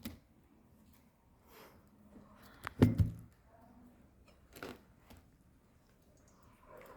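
A few short knocks and thumps from things being handled. The loudest is a heavy thump about three seconds in, and a softer knock follows a second and a half later.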